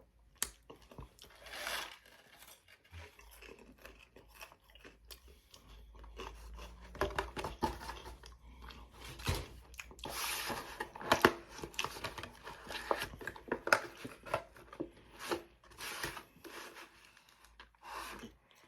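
A man chewing and biting food close to the microphone, with wet mouth clicks and crunches, while paper food wrapping crinkles and tears.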